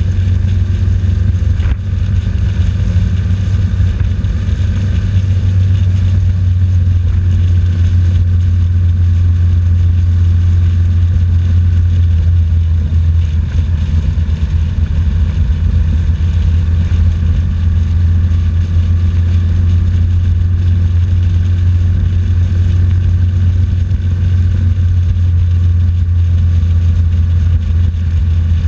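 BMW R1200GS boxer-twin engine running steadily as the motorcycle rides through a road tunnel, a constant loud low drone.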